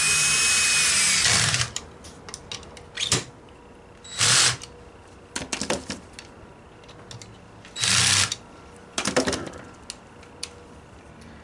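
Cordless drill/driver driving screws into a router's base plate to mount a template-guide adapter: one steady run of about a second and a half at the start, then two short bursts about four and eight seconds in, with clicks and clatter of parts being handled in between.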